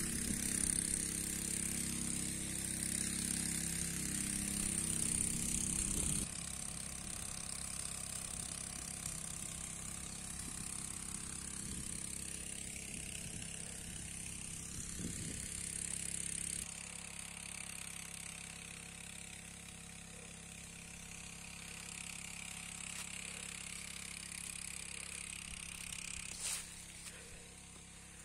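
A small engine running steadily, loudest for the first six seconds, then fainter after abrupt drops in level about six and sixteen seconds in. A brief knock comes near the end.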